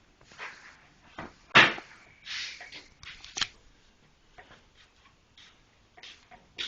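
Irregular sharp knocks and clicks, the loudest about one and a half seconds in.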